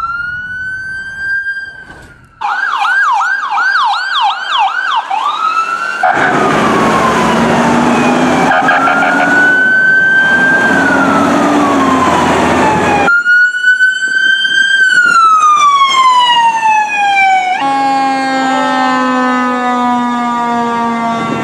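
Fire engine and ambulance sirens on emergency response: electronic sirens wailing in slow rising and falling sweeps, switching briefly to a fast yelp. Blasts of a low air horn sound mid-way and again near the end, over loud passing-truck noise.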